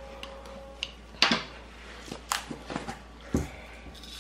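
Light clicks and taps of hard plastic and small metal tools being handled on a tabletop, the sharpest about a second in, with a duller knock a little after three seconds.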